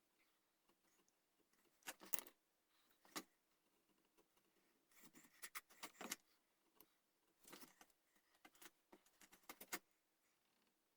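Faint scattered scraping and clicking strokes of hand-tool carving on a wooden gunstock, coming in short clusters with quiet gaps between.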